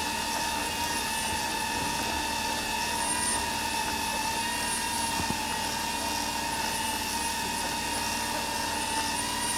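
Electric winch on a Jeep Wrangler JKU pulling in its line under load, a steady, unbroken whine.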